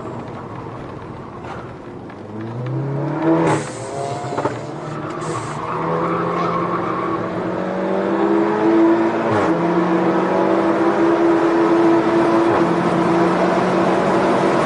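SEAT León Cupra's turbocharged 2.0-litre four-cylinder engine heard from inside the cabin while driven hard on track. The revs climb and fall with the gear changes, with a sharp drop in pitch at an upshift about nine and a half seconds in. The engine grows steadily louder as the car accelerates down the straight.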